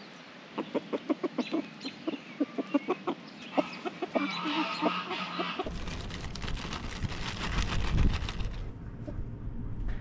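Chickens clucking, a quick run of short clucks for about five seconds. Then wind rumbling on the microphone, with a plastic bag rustling and frozen peas rattling onto the ground as they are poured out for the hens.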